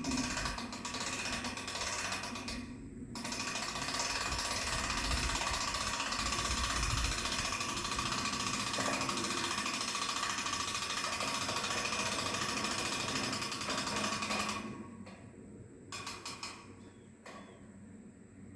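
Winch cranking a tower mast up: a rapid, even mechanical clatter in a short spell, then steadily for about eleven seconds, stopping a few seconds before the end with two brief bursts after.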